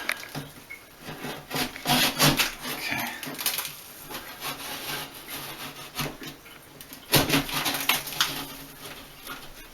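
Razor knife scraping and cutting through sheetrock in irregular strokes, with the loudest bursts about two seconds in and again about seven seconds in.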